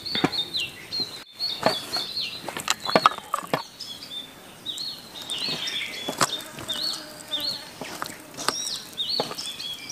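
A hand kneads and squeezes wet spice masala on a steel plate, giving soft wet squelches and pats. A bird chirps over and over behind it, short high calls a fraction of a second apart.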